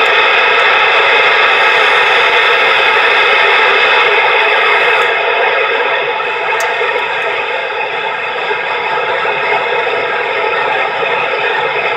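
CB radio receiver hiss through the radio's speaker: steady static with no station coming through, easing slightly about halfway. It is the open band after a skip contact has faded out.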